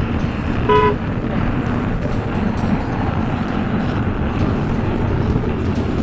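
Steady rumbling vehicle and road noise, with one short pitched beep a little under a second in.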